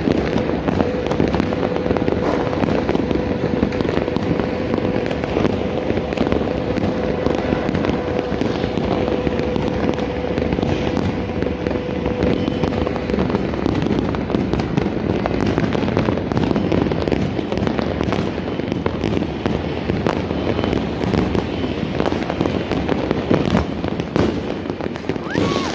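New Year's fireworks and firecrackers going off many at a time: a dense, unbroken barrage of bangs and crackling. A steady tone sounds along with it from about two seconds in until about thirteen seconds in.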